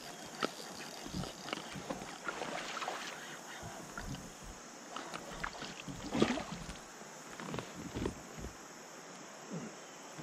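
Scattered light knocks and clicks of a fishing rod, reel and gear against a plastic kayak as an angler reels in and works a lure, over a faint steady hiss; the loudest knock comes about six seconds in.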